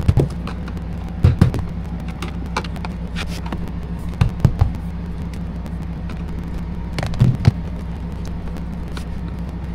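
Sharp cracks and snaps as a screwdriver pries the epoxy-glued lid off a plastic lithium (LiFePO4) battery case. The glue bond gives way in several bursts: at the start, about a second in, around four and a half seconds, and around seven seconds. A steady low hum runs underneath.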